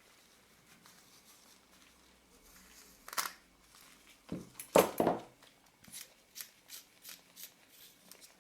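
Small handling sounds as the loupe's rear lens group is worked out: a short rustle, a few knocks, then a run of light clicks, about three a second.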